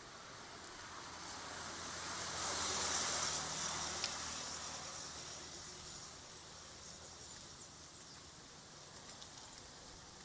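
A vehicle passing by: a hiss of tyres with a low engine hum, swelling over about two seconds and fading away over the next few. A single sharp click about four seconds in.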